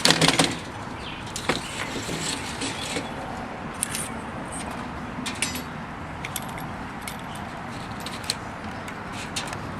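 Light clicks and scrapes from handling a window screen frame and its metal screening and spline, sharpest in the first half-second and then scattered, over a steady background hiss.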